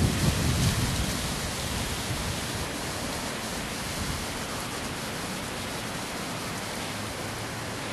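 Hurricane-force storm wind rushing steadily. A gust buffets the microphone with a low rumble, which eases off after about a second.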